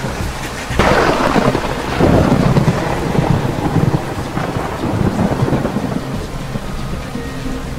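A sudden thunderclap about a second in, followed by a long rolling rumble that slowly fades.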